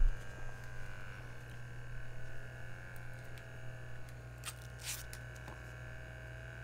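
Small electric air pump of a Metene upper-arm blood pressure monitor running steadily with a low hum, inflating the arm cuff as the pressure climbs. A brief knock right at the start and a couple of faint clicks about four and a half to five seconds in.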